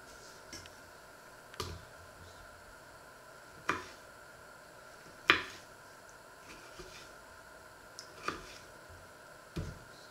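Sharp knocks and clicks of a kitchen knife on a wooden cutting board while plums are halved and pitted, about six spread irregularly, the loudest about halfway. A faint steady hum runs underneath.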